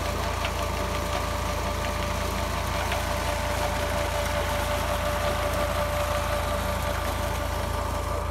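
Tractor's diesel engine running steadily at a constant speed, driving an irrigation water pump: a low drone with a steady whine above it.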